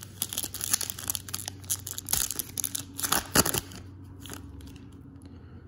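Plastic-foil wrapper of a trading-card pack being torn open and crinkled: a dense run of sharp crackles for the first three seconds or so, then quieter.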